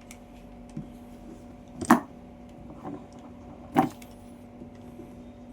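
Two sharp knocks about two seconds apart, as the parts of a floor-cleaning mop are handled, over a steady low hum.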